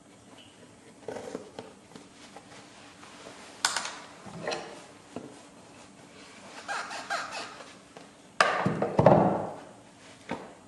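Heavy canvas handled and sewing thread drawn through it by hand, making a series of short rasping rustles as stitches are pulled tight. The longest and loudest rasp comes about eight and a half seconds in.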